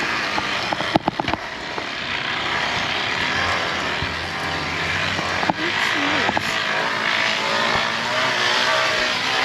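Engine sound of a car running steadily over a constant rushing noise, with a quick cluster of clicks about a second in and another click in the middle.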